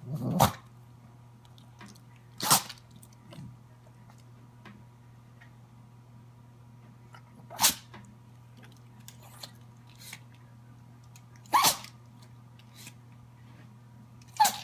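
Sneezing: five short, sharp sneezes a few seconds apart.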